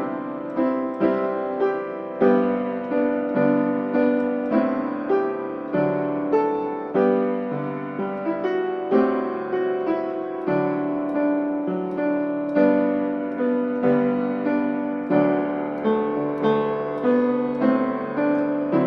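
Piano music: a gentle melody of struck notes, each fading, about two a second.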